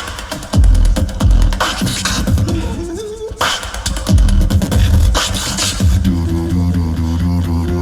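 Tag team beatboxing: two beatboxers layering deep vocal kick drums and sharp snare strokes, moving into a held, humming vocal bass line about six seconds in.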